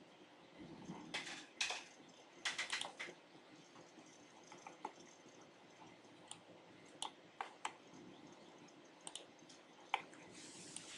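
Faint, scattered clicks of a computer mouse and keyboard, a few of them bunched together between about one and three seconds in.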